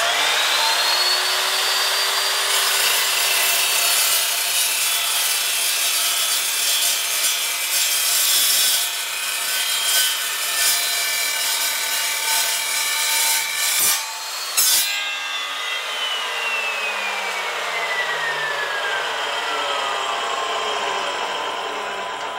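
Evolution S355MCS 14-inch metal-cutting chop saw: the motor spins up with a rising whine, then the carbide-tipped blade cuts through a metal tube at a 45-degree angle, loud and steady. About fifteen seconds in, the cut ends and the motor is switched off, and the whine falls away as the blade spins down.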